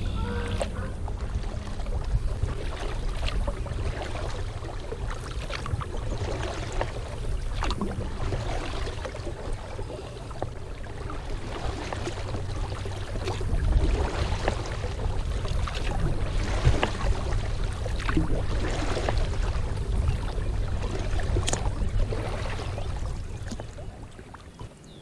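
Kayak paddle strokes, with water splashing and dripping irregularly over a steady low rumble.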